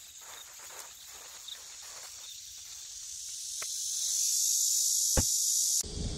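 Cicadas buzzing as a high hiss that swells to loud in the second half. Over it are light rustling of gear being handled and a short knock, then a louder thud about five seconds in, like a pickup's door shutting.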